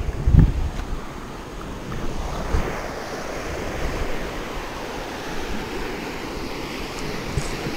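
Steady rush of river water over rapids, with wind buffeting the microphone. A brief low knock of handling noise about half a second in.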